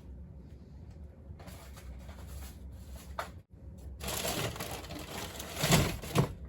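Packaging rustling and crinkling as diecast cars are handled and pulled from the box, in two spells, the second louder, with a couple of sharper crackles near the end.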